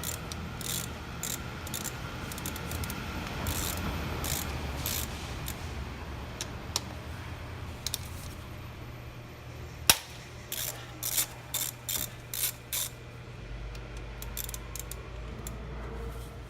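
Socket ratchet clicking in runs as it backs out valve cover bolts with a 10 mm socket, with one sharp click about ten seconds in.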